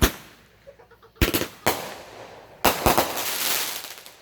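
Multi-shot consumer fireworks cake firing: a sharp bang, then two more bangs a little over a second in, and a double bang about two and a half seconds in that trails into a crackling spray that fades out.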